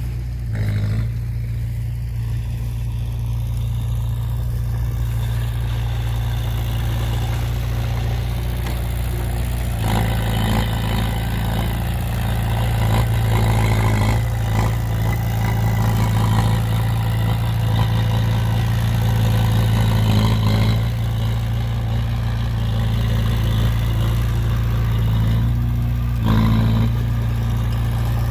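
Heavy diesel engine of a dump truck or bulldozer running steadily, working harder and louder for about ten seconds from a third of the way in, with another short burst of power near the end.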